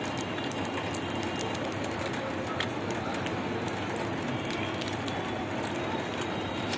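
A steady, even hiss, with scattered faint clicks and crinkles as a chocolate wrapper is handled.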